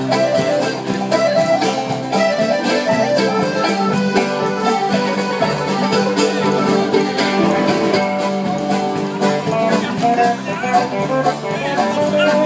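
Live acoustic folk band playing: strummed acoustic guitar keeping a steady rhythm, with an accordion and other string instruments.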